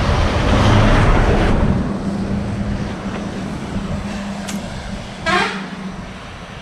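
A motor vehicle passing on the road, with a steady low hum that fades after about five seconds. A short, quickly rising sound comes about five seconds in.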